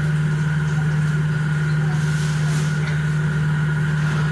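An electric fan motor running with a steady low hum and a fainter high tone above it.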